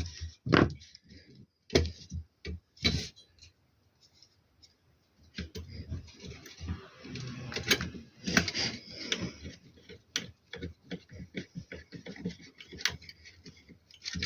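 Irregular clicks and light knocks of small hard objects being handled, with a stretch of rustling in the middle and a quick run of ticks near the end.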